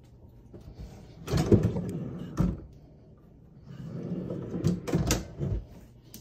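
Tall wooden pull-out pantry rack rolling out on its drawer slides and stopping with a knock, then pushed back in and closing with a couple of knocks near the end.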